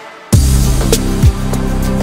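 Background electronic music with a steady beat; it drops out briefly at the start and comes back in louder about a third of a second in.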